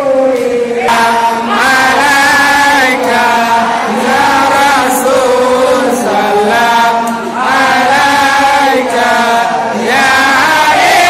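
A group of men chanting together in unison, an Islamic devotional chant for the Prophet's birthday (Maulid), in long held phrases that slide up and down with short breaks between them.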